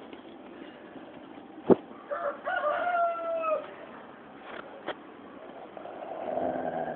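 A rooster crows once, about two seconds in: short opening notes, then a long held note that falls away at the end. Just before it comes a sharp click.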